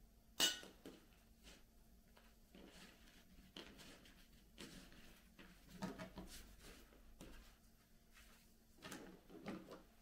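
Kitchen handling sounds: a sharp knock about half a second in, then scattered light knocks and clinks of dishes and utensils, with small clusters of clatter around six and nine seconds in.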